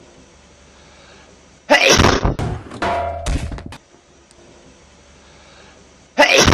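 A loud, sudden sneeze about two seconds in, with broken sound trailing on for over a second after it. Another loud, sudden sound begins just before the end.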